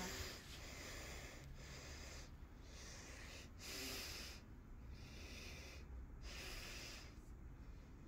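Ceiling fan running: a soft hiss of moving air that swells and fades unevenly, over a low steady hum.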